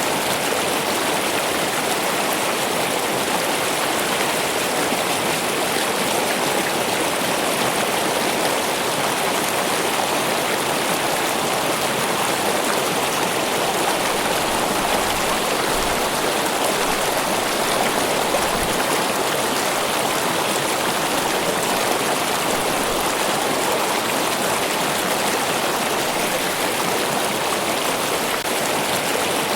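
Running water, a steady, even rush with no breaks or pauses.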